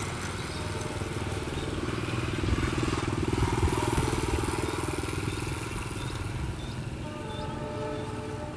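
ATR 72 turboprop airliner's engines and propellers running at high power as it rolls down the runway for takeoff: a steady throbbing drone that swells a couple of seconds in, then slowly fades as the aircraft pulls away.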